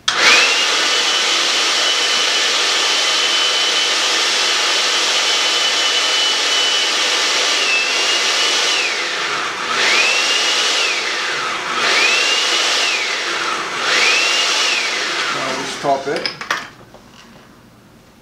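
Countertop blender motor starting abruptly and running at a steady high whine while blending onion, peppers and herbs in lime juice. About nine seconds in, its pitch drops and climbs back three times, then it winds down and stops near the end, with a few clicks from the jar.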